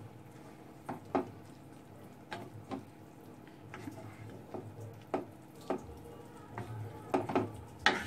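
Utensil stirring cooking bottle-gourd mash in a pan, knocking against the pan in about a dozen sharp clicks, often in pairs, over a faint low hum.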